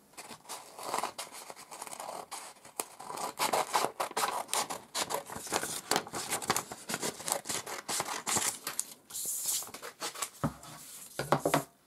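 Scissors cutting through folded sheets of paper, with repeated snips and the paper rustling as it is handled.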